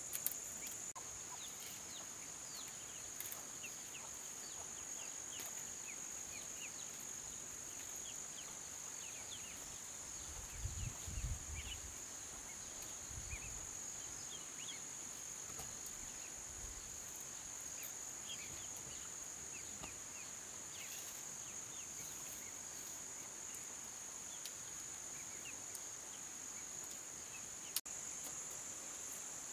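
Steady high chorus of crickets with many short, scattered peeps from baby chicks over it. A few low thumps come around the middle, and there is one sharp click near the end.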